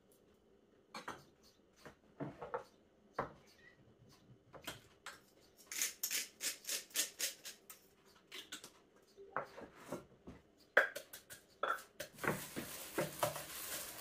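Kitchen food-preparation handling: scattered clicks and knocks of a knife, jar and utensils around a clay mortar, with a quick run of sharp clicks about halfway through. Near the end, a steady rustling as food is mixed by a plastic-gloved hand in a steel bowl.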